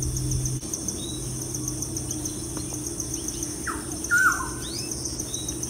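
Birds calling: a few sharp calls that sweep down in pitch, loudest about four seconds in. Under them runs an insect's steady, rapidly pulsing high chirr.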